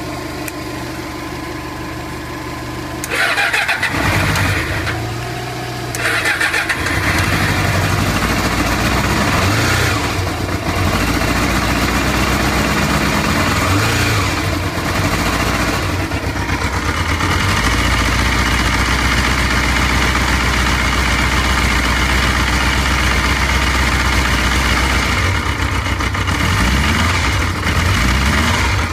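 Yamaha XJR400's air-cooled inline-four engine being started, cranked on the starter about three seconds in and catching a few seconds later. It then runs with several throttle blips, around ten, fourteen and sixteen seconds, before settling to a steady idle. It revs up sluggishly: the owner points out its poor response, after years without running.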